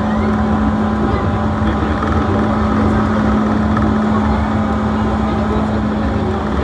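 Seibu Railway electric train running along the line, heard from inside the front car: a steady hum with a constant low rumble of wheels on track.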